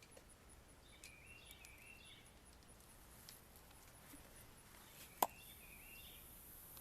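Faint birds chirping, then about five seconds in a sharp click followed by a steady high hiss of air escaping from a bike pump head not pushed fully onto the tyre valve.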